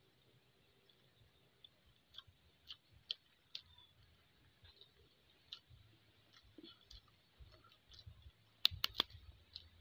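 Faint, scattered clicks of chewing and of handling balut eggs and their shells. A quick cluster of louder, sharp clicks comes near the end as an egg is brought up to the mouth.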